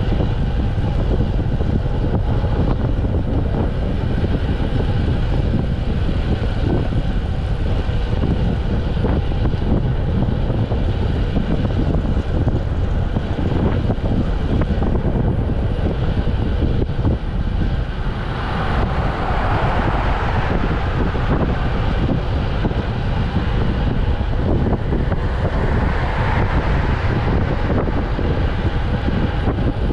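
Wind rushing over a bike-mounted camera's microphone, with tyre and road noise from road bikes riding at speed. A louder hiss swells up twice, past the middle and again near the end.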